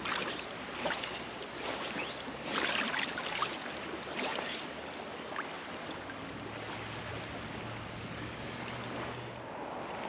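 Water splashing and sloshing around a person wading waist-deep, with several short splashes in the first half, then steadier water noise.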